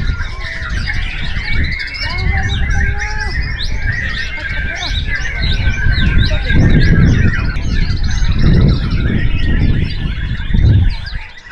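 White-rumped shama singing a continuous, varied song of rapid whistles, sweeps and chirps, with other caged songbirds singing over it, above a low background rumble.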